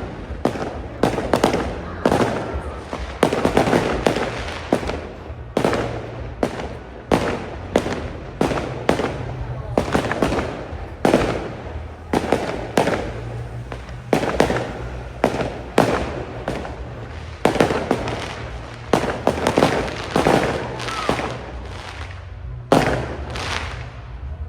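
Fireworks display: a continuous barrage of exploding aerial shells, sharp bangs going off one or two a second, overlapping one another.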